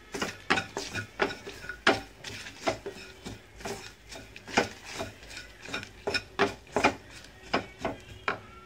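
Spatula scraping and knocking against a non-stick pan as sautéed onions and spices are stirred: a run of irregular scrapes and knocks, about one or two a second.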